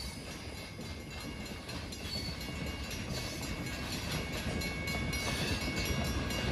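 The cars of a train hauled by Nickel Plate Road steam locomotive no. 765 rolling past, wheels rumbling and clicking over the rails, the sound slowly growing louder.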